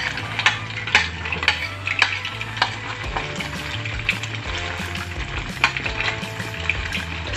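Chicken pieces deep-frying in hot oil in a stainless steel pot, sizzling with a dense crackle and frequent sharp pops while metal tongs stir them.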